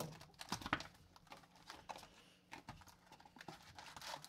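Cardboard hockey card box and its foil packs being handled: irregular light knocks, taps and rustles as the box is turned over and the packs are pulled out.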